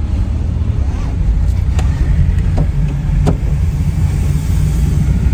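Steady low rumble of a car's engine and tyres heard from inside the cabin while driving, with a few faint clicks.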